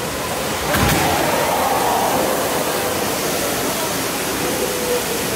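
Floodwater pouring and splashing down into a shop, a steady loud rush of water, with a knock about a second in.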